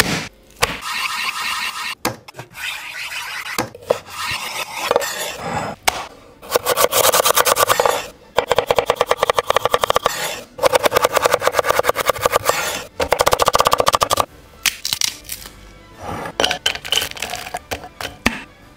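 A chef's knife chopping vegetables on an end-grain wooden cutting board: runs of rapid, even chops in the middle, with slower, scattered cuts before and after.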